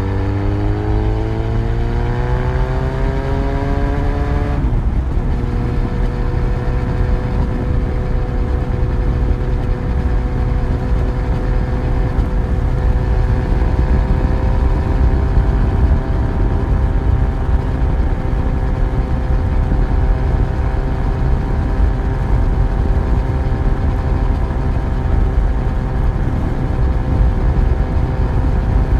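Yamaha FZ1's inline-four engine pulling under acceleration, its pitch rising for the first few seconds, then an upshift about five seconds in, after which it runs at a steady cruise. A heavy low rush of wind and road noise runs underneath.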